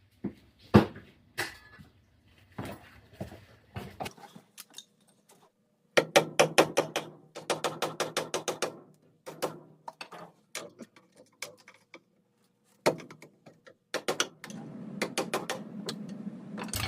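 Sharp knocks and scrapes of a screwdriver or chisel working cut ABS plastic out of the hub of a drain T fitting, with a quick run of strikes about six seconds in. A steady low hum starts near the end.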